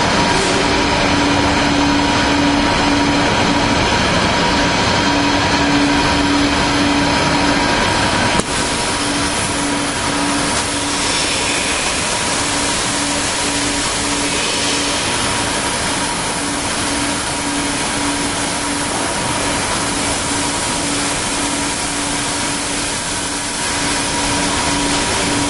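Kaltenbach WBZ 1500 plate profiling machine running with a steady hum and a pulsing low tone. About eight seconds in there is a click, and a steady hiss starts as the cutting torch lights on the steel plate.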